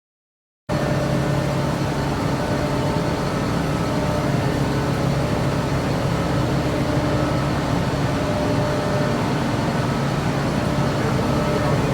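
Steady drone of a car ferry's engines and machinery on the vehicle deck, a low hum with several unchanging tones in it. It cuts in suddenly just under a second in.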